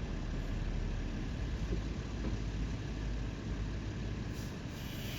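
Vehicle engine idling: a steady low rumble, with a short hiss near the end.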